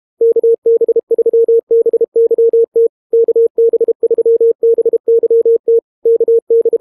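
Morse code as a single steady mid-pitched beep, keyed on and off in short and long elements with brief gaps between groups.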